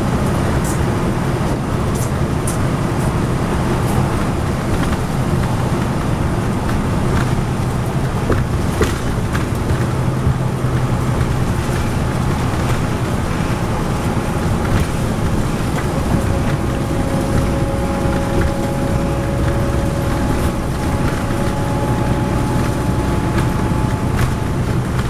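Interior of a 2010 NABI 40-SFW transit bus cruising on a highway: the steady low drone of its Cummins ISL9 diesel engine under road and tyre noise, with a few light rattles early on. A faint steady whine comes in about two-thirds of the way through and fades out again.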